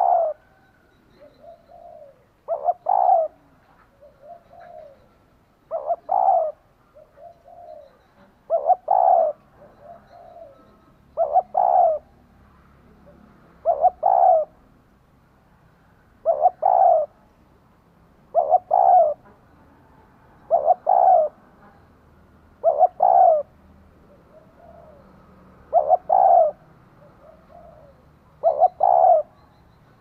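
Female spotted dove cooing: a loud call of two or three quick notes repeated about every two to three seconds, with softer coos between the calls. It is the hen's call that rouses and draws male doves.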